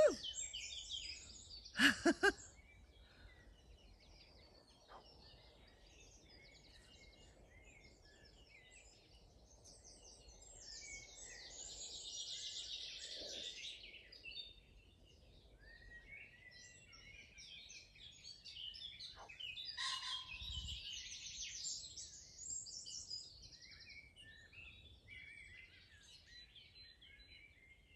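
Small songbirds singing in the treetops: several high chirps and trills overlapping, swelling and fading, over a faint steady outdoor background. Two short knocks come about two seconds in.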